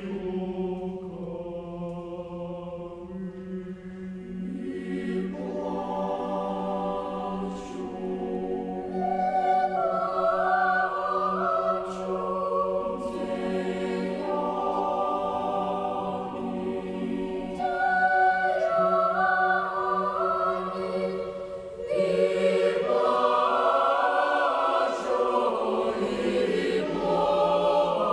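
A choir singing slowly, with long held notes over a steady low note. It grows louder about a third of the way in and again near the end.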